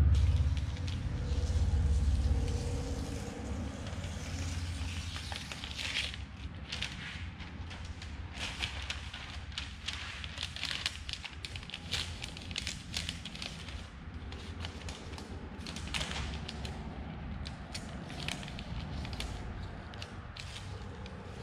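Stiff paper crackling and crinkling in many small irregular rustles as it is pressed and creased by hand. A low rumble at the start fades out over the first few seconds.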